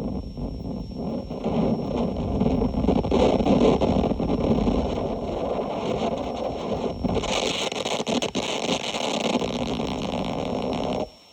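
Harsh noise music: a loud, dense, distorted electronic noise texture. A bright hissing layer comes in about two-thirds of the way through, and it all cuts off suddenly near the end.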